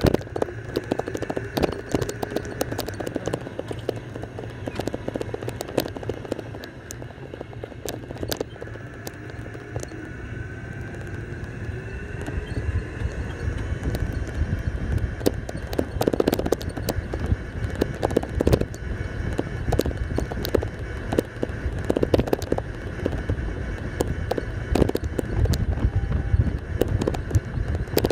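Golf cart driving along a road: a steady running noise with frequent small rattles and clicks, its low rumble growing louder about halfway through.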